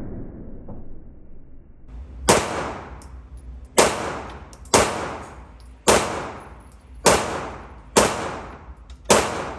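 A 9mm pistol fired seven times in slow, steady succession, about one shot a second, starting about two seconds in; each shot echoes briefly.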